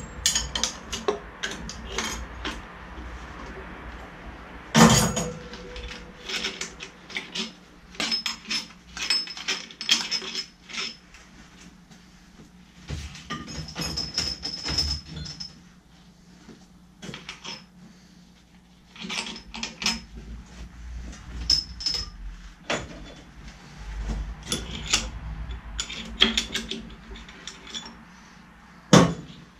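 Metal hand tools and engine parts clinking and clattering, with scattered clicks and short metallic rings and a sharp metal knock about five seconds in and again near the end.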